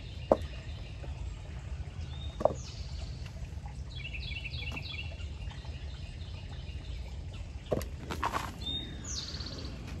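Hand-digging in soil in a plastic pot: a couple of sharp knocks early on and a burst of rustling and scraping near the end, while songbirds chirp in short repeated series in the background.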